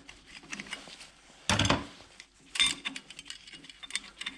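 Metal parts and tools being handled on a workbench: a run of light clicks and clinks, with two louder clattering bursts about a second and a half and two and a half seconds in.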